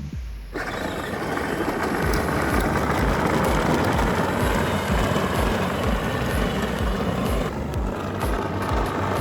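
Power Wheels ride-on toy car running on an 18-volt DeWalt battery converter, its plastic wheels rumbling over pavement, with a regular low thump two to three times a second. The sound starts abruptly about half a second in.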